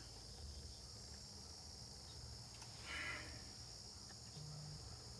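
Steady high-pitched chorus of crickets and other insects, with a brief soft sound about three seconds in.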